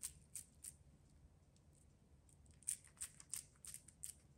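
Faint, sticky clicks and smacks of wet hands squeezing minced kebab koobideh meat onto a metal skewer. There are a few near the start, then a quicker run of them in the second half.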